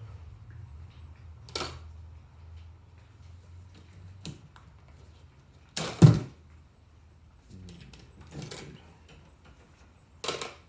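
Several irregular sharp metal taps and knocks, the loudest a double strike about six seconds in: a hammer striking a tool to drive the loose exhaust valve guide back into a Honda GCV160 cylinder head.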